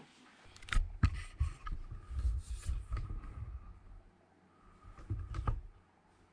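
Camera handling noise: low rumbling bumps and rubbing with a few sharp knocks, about a second in and again near the end.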